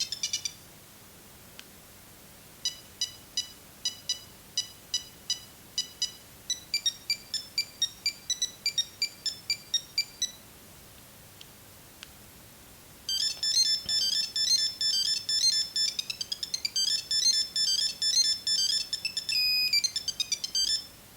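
Nokia 6310 mobile phone playing its built-in monophonic ringtones through its small speaker. A tune of short, separate beeping notes runs from about three seconds in to ten seconds, quickening partway. After a pause, a faster, busier beeping tune plays until just before the end.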